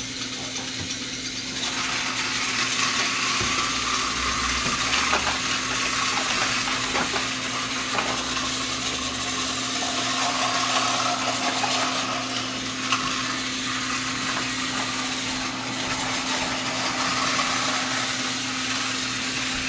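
Motor of a battery-powered Thomas & Friends TrackMaster Skarloey toy engine, whirring steadily as it runs along plastic track pulling its trucks. It starts up about two seconds in.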